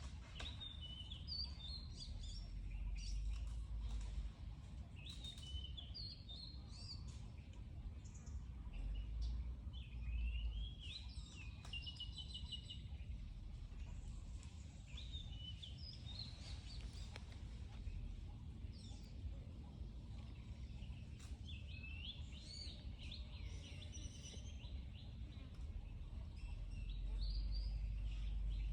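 Birds chirping and trilling in short, repeated calls, over a steady low rumble that swells a few times and grows louder near the end.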